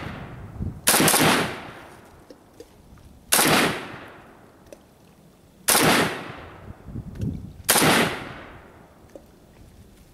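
Four single shots from a Century Arms WASR-10 semi-automatic AK-pattern rifle in 7.62 mm, fired at an even pace about two seconds apart, each shot's report dying away over about a second.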